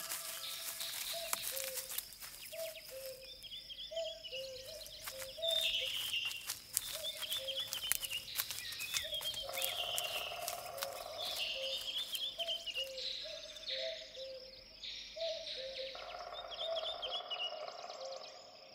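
Forest ambience of birds calling: a low two-note call repeated steadily under higher chirping birdsong, with a scatter of crackling clicks through the first half.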